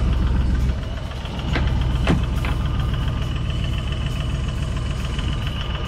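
Tour boat's engine running steadily with a low, pulsing rumble, with a few sharp knocks about two seconds in.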